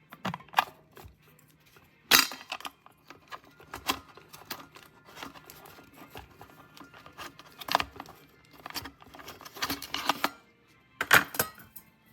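Irregular clicks, taps and clatter of hard plastic and glass being handled: an electric kettle and its parts being picked up and set down. The two loudest knocks come about two seconds in and near the end.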